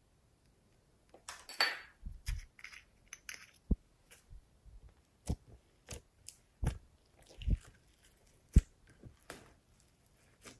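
Close-up handling sounds of a plastic pencil sharpener and a glass tray of slime: a few short scraping rustles, then a series of sharp clicks and taps, one much louder than the rest about two-thirds through, with soft slime squishing as fingers press into it near the end.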